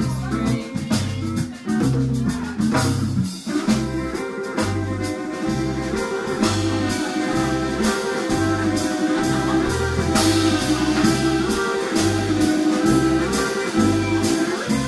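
Small live jazz-blues band playing an instrumental passage with no vocals: a bass line stepping from note to note under guitar, violin and hand drums. A sustained melodic line comes in about six seconds in.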